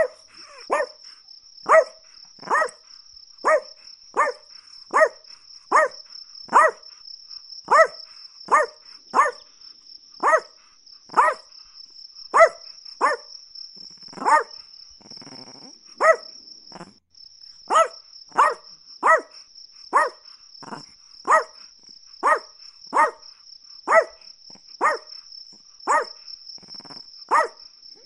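Chihuahua barking over and over in sharp, evenly spaced yaps, a little more than one a second. A steady high-pitched trill runs underneath and breaks off briefly a little past the middle.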